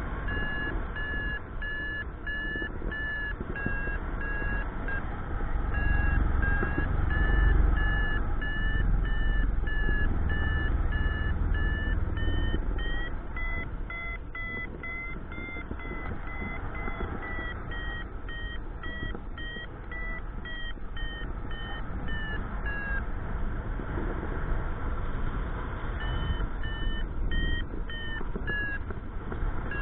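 Paragliding variometer beeping in quick pulses, the climb tone that signals rising air. Its pitch steps up for a few seconds in the middle and then back down, and it falls silent for a few seconds near the end before starting again. Wind rushes over the microphone.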